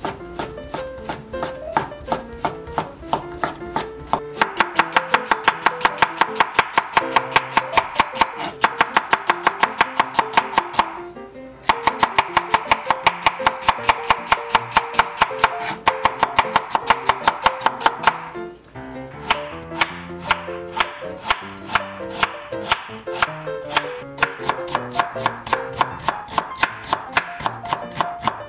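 Kitchen knife chopping fish cake, onion and carrot into thin strips on a bamboo cutting board: quick, even strokes about four or five a second, with two short pauses, over background music.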